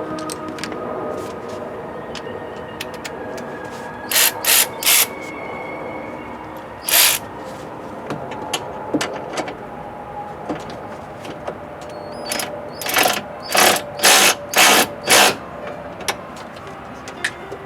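A hand ratchet wrench worked in short strokes during coil-on-plug removal on a Ford 5.4L V8: three quick strokes about four seconds in, one more near seven seconds, then a run of about six strokes later on.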